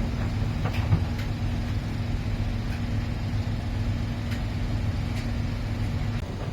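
Miele PW 6080 commercial washing machine running, a steady motor hum with a constant tone that cuts off near the end. A few faint clicks sound over it.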